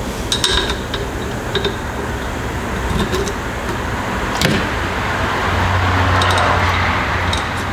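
Light metallic clinks and sharp clicks of hand tools on a motorcycle fork leg's bottom bolt as the small sealing washer is worked off. A low hum and hiss swell for about two seconds near the end.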